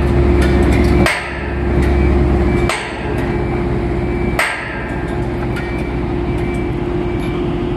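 Hammer blows on steel driving connecting pins into lattice crane boom sections: three loud ringing metal strikes about a second and a half apart, with lighter taps between and after. A steady engine hum runs underneath.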